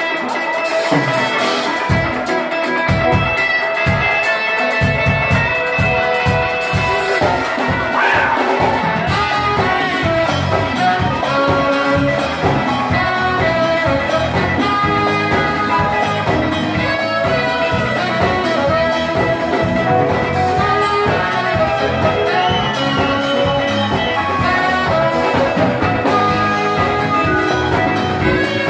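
Live Ethiopian band playing: electric bass, congas and drum kit under saxophone and guitar. The bass and drums come in about two seconds in and settle into a steady groove.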